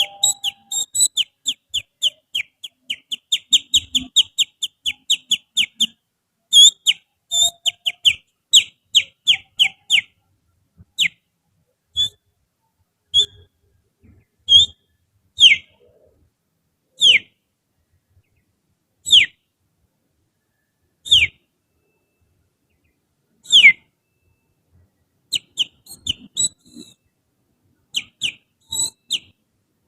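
Finger whistling imitating a kutilang (bulbul) song: sharp, high whistled notes, each sliding downward. They come in a quick run of about three a second, then as single notes every two seconds or so, and in short clusters near the end.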